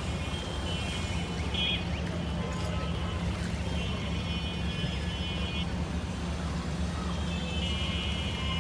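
Steady low rumble of a wooden river boat's engine running. Three times a thin high-pitched tone rings out over it, each lasting one to two seconds.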